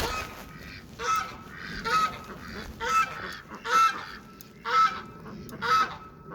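Farm poultry calling over and over, about one short call a second.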